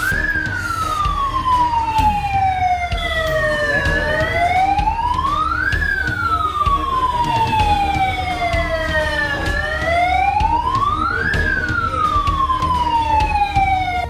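Electronic security alarm siren of a Manappuram gold-loan office wailing, its pitch rising quickly and falling slowly about once every five and a half seconds. It was set off by a technical fault, a false alarm.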